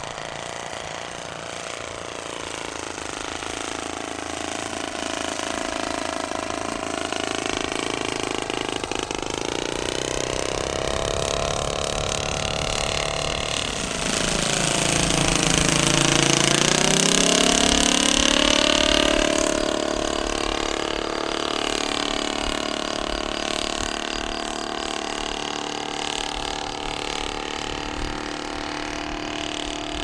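Kolm 65 cc four-stroke engine of a large radio-controlled model aircraft running in flight. Its pitch sweeps up and down as it passes. It is loudest about halfway through, when the plane is close overhead.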